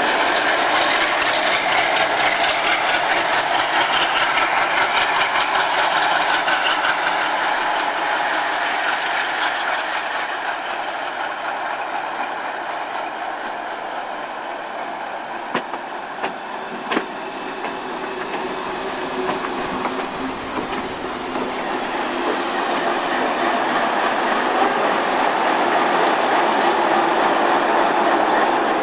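OSE A.351 class Alsthom diesel locomotive running close by as it moves with a train of wagons, with steady wheel-on-rail noise. Two sharp knocks sound about 15 and 17 seconds in.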